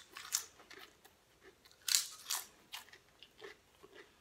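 Pringles potato crisps being chewed with a full mouth: irregular sharp crunches, the loudest couple about two seconds in.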